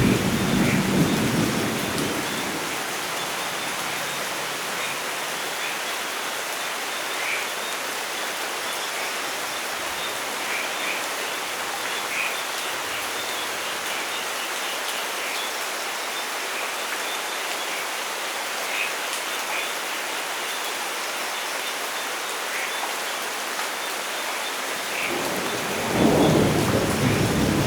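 Steady rain falling with rolling thunder: a rumble at the start dies away within the first couple of seconds, then only the rain hiss continues until another roll of thunder builds near the end.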